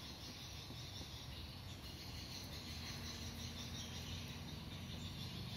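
Faint, steady chirring of insects such as crickets, over a low hum.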